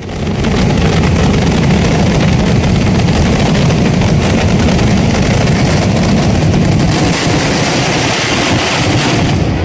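A dense barrage of daytime fireworks going off in rapid, overlapping bangs that merge into one continuous rolling crackle, loud throughout.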